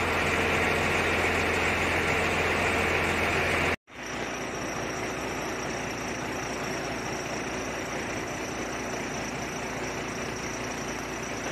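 Fire engine's diesel engine running steadily. It cuts out for a moment about four seconds in, then runs on a little quieter.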